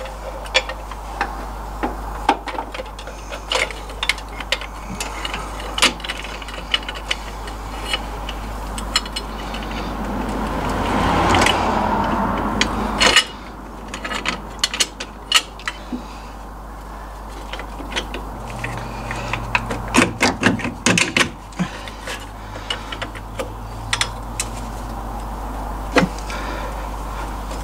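Metal U-bolts being fitted over an MGB's rear axle and leaf spring by hand: irregular clinks, taps and knocks of steel on steel. Near the middle, a scraping noise builds and then cuts off suddenly.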